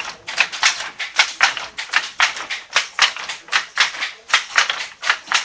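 Wooden handlooms at work, clattering in a quick, uneven rhythm of sharp clacks, about four a second.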